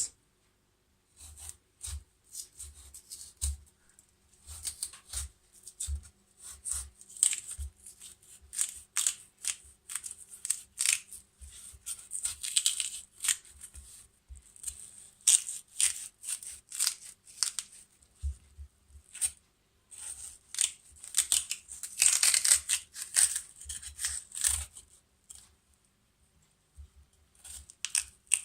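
A knife scraping and gouging out the flesh of a black radish in short, irregular strokes, with longer scraping runs about twelve seconds in and again around twenty-two seconds.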